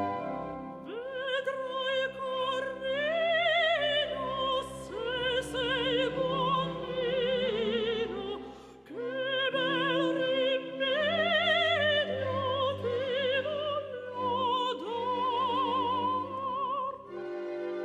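Background music: an operatic voice singing long notes with wide vibrato over an orchestra, with a short break about halfway through.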